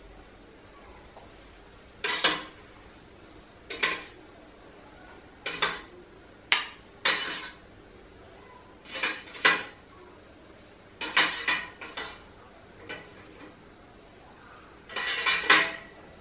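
A metal spoon clinking and scraping against a metal steamer pot and a ceramic bowl as steamed dumplings are lifted out one by one: a dozen or so short, irregular clatters every second or two, the loudest near the end.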